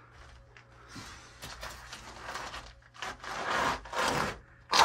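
Rustling and scraping noises in several bursts, louder in the second half, ending with a sharp short rustle.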